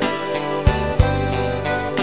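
Instrumental karaoke backing track: sustained keyboard chords over bass notes and a steady drum beat, with no lead vocal.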